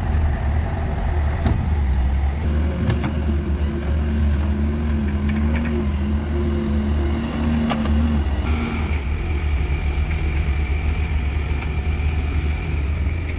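Diesel engine of a Doosan DX140W wheeled excavator running under load while it digs and loads soil, a heavy steady rumble with a few sharp clanks.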